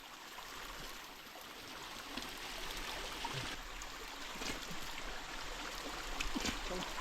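Stream water flowing, a steady rush.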